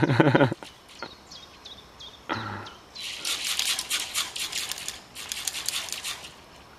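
Zip-line trolley rattling fast along its steel cable as the rider slides on it, in two stretches of a second or so in the second half. Short falling bird chirps sound between them, and there is a brief loud sound right at the start.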